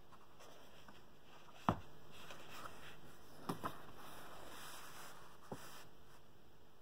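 Handling noise from a book and the CD in its paper pocket: a sharp knock, then paper sliding and rustling with a few light clicks as the CD is uncovered and moved.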